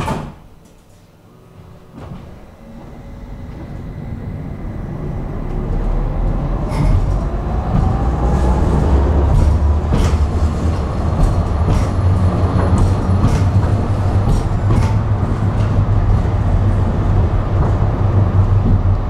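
Tram pulling away after a thump at the very start: the traction motor whine rises steadily in pitch as it accelerates, and the wheels on the rails build to a steady heavy rumble with occasional sharp clicks.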